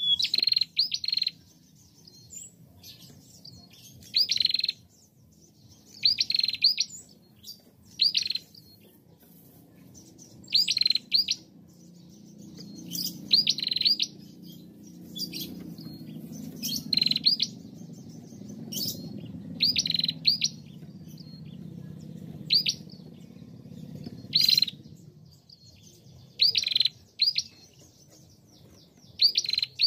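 Female prenjak calling: short bursts of sharp, high chirps, a few quick notes each, repeated about every two seconds. A faint low rumble runs underneath through the middle stretch.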